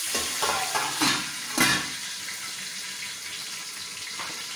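Water poured from a glass into a hot pan of fried onions and oil, sizzling hard in the first couple of seconds as it hits, then settling into a steady sizzle.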